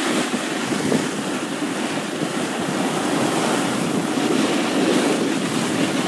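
Snowboard sliding down a snow slope: a steady rushing, scraping hiss of the board on the snow, mixed with wind on the microphone.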